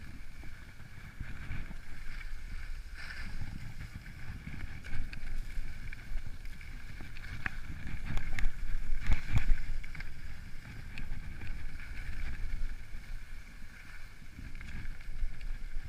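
Skis sliding and scraping over piste snow, with wind rumbling on the body-worn camera's microphone. A few sharp clicks and a louder stretch of scraping come about eight to nine and a half seconds in.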